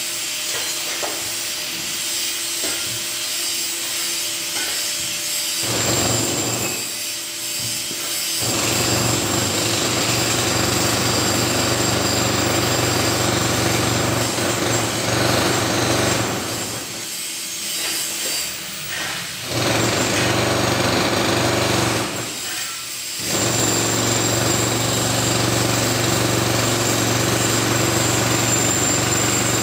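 Angle grinder cutting steel bar, its disc grinding continuously into the metal, with a few brief let-ups where the cut eases off, about six, seventeen and twenty-two seconds in.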